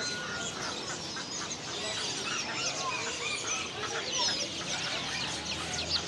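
Many caged birds chirping and calling at once, a dense chorus of short overlapping chirps.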